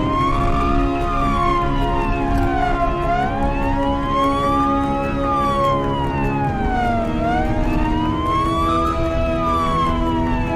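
Emergency-vehicle siren in wail mode, its pitch rising and falling slowly and evenly about every four seconds, over a steady bed of held low tones.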